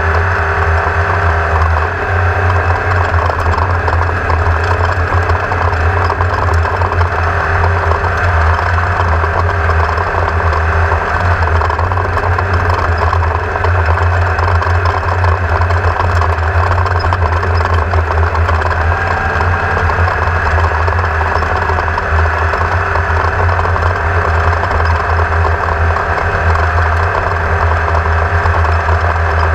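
An engine running steadily at an even speed, with a deep drone underneath.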